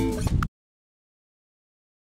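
Background music of strummed acoustic guitar that cuts off abruptly about half a second in, then total silence.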